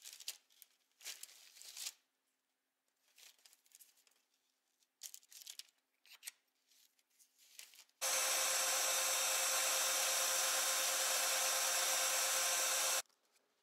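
Short scrapes and rubs as the wooden handle halves and the steel tang and guard of a knife are handled and fitted together. About eight seconds in, a belt sander starts running steadily, sanding the wooden handle blank, and stops abruptly about five seconds later.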